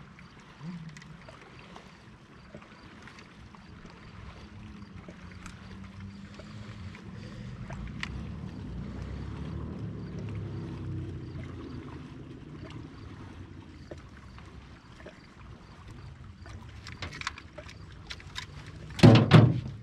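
Water lapping against a small fishing boat's hull, with scattered light clicks of gear being handled. A run of clicks and then one loud knock come near the end.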